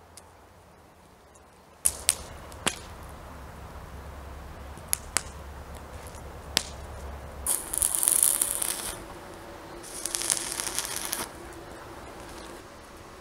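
Two short bursts of stick (arc) welding, about one and a half seconds each, the electrode crackling and sizzling as it tacks a steel bracket to a square steel pipe. Before them come a few sharp metal clicks and knocks.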